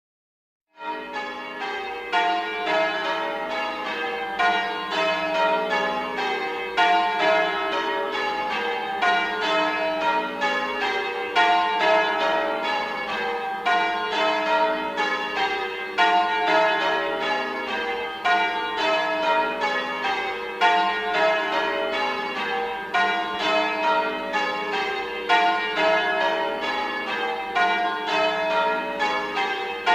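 A peal of bells rung in quick succession, about four or five strikes a second, each ringing on into the next, starting about a second in.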